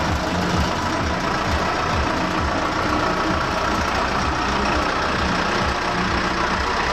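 Lorry engine running steadily at low speed as the float lorry drives slowly past close by.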